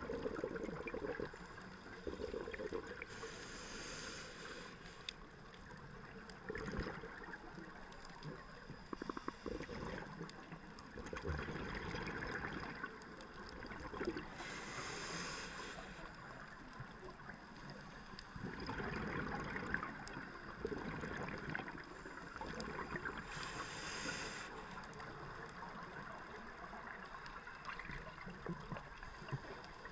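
Scuba regulator breathing underwater, heard through a GoPro's waterproof housing: bubbling and gurgling throughout, with a hiss three times, about every ten seconds.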